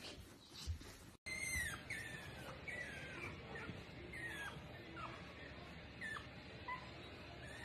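Otter giving short, high chirps that fall in pitch, about two a second, starting after a brief gap about a second in.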